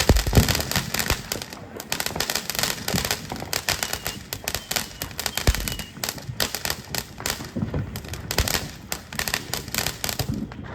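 Consumer fireworks going off: a dense run of rapid sharp cracks, with deeper booms right at the start and again about five and a half seconds in.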